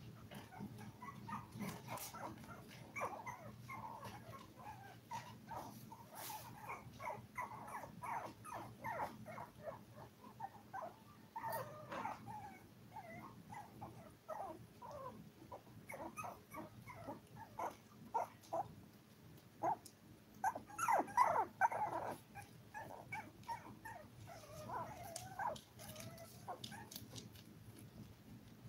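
Five-week-old toy poodle puppies whimpering and squeaking in a long run of short, high cries, loudest in a burst about three-quarters of the way through, over a faint steady hum.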